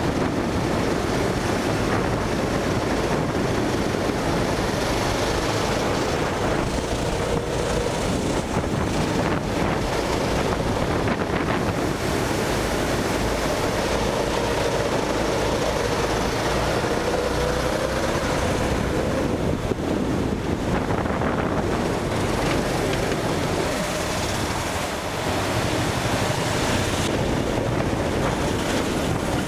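Go-kart engine running at speed, its pitch rising and falling through the corners, under heavy wind buffeting on the kart-mounted camera's microphone.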